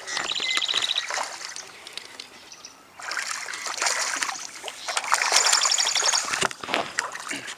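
A hooked bass splashing and thrashing at the surface beside a kayak. A fishing reel gives short runs of rapid clicking just after the start and again about five seconds in.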